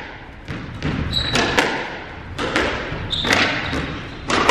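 Squash rally: the hard rubber ball cracking off rackets and the court walls about once a second, echoing in the court, the loudest hit near the end. Two short squeaks of court shoes on the wooden floor.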